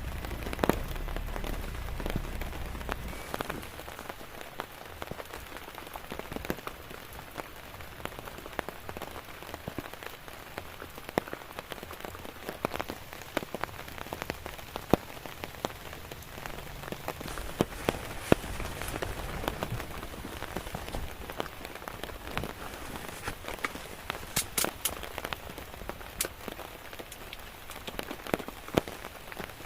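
Steady rain with many individual drops striking close by as sharp, irregular ticks, a few of them louder. A low rumble sits under the rain in the first few seconds.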